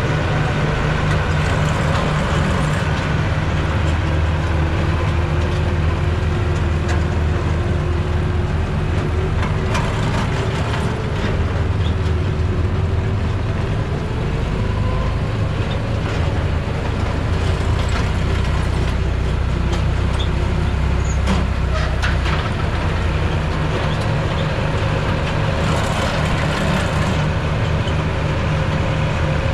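Tractor engine running steadily under way, with a few sharp clanks from the hay equipment now and then.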